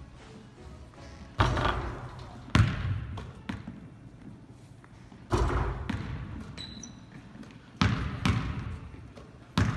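Basketball bouncing on a hardwood gym floor: about six loud, separate bangs at uneven intervals, each followed by a long echo in the hall.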